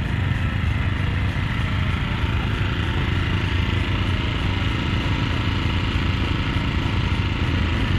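An engine running steadily without let-up.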